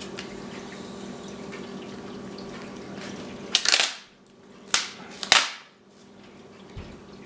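Adhesive vinyl graphic being lifted and handled against a plastic motocross shroud: three short crackling rustles about halfway through.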